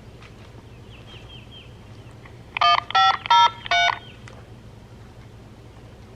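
Four quick electronic beeps in a row, each about a quarter second long, about two and a half seconds in.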